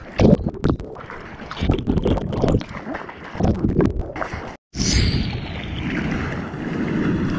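Water splashing and sloshing against a camera held at the surface as a bodyboarder paddles with his hands, in irregular splashes. A little past halfway the sound cuts out for an instant, then a steadier rush of water follows.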